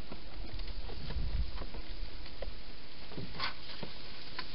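Wild hedgehog eating inside a plastic feeding station: irregular small clicks and patter, with one sharper click about three and a half seconds in, over a steady hiss.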